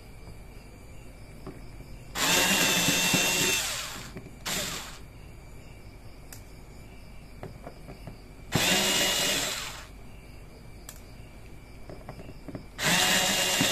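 Small electric drill unscrewing a phone's screws in short runs: a whining motor runs for about a second at a time, three times, with a brief blip after the first.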